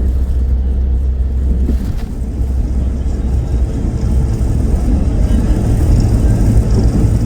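Steady low rumble of a vehicle on the move, engine and road noise, with a sudden change in its tone about two seconds in.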